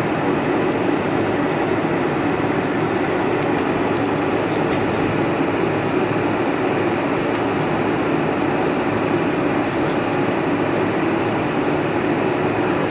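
Steady cabin noise inside a Boeing 747-400 combi taxiing: the low hum of its four jet engines at low thrust mixed with the rushing hiss of the cabin air, with a faint high whine above it.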